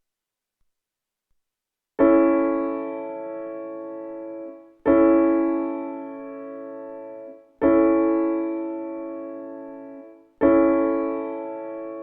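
Piano chords struck four times, starting about two seconds in. Each chord is held about two and a half seconds, fades, and stops when the keys are released. They are played as a demonstration of how major and minor chords sound.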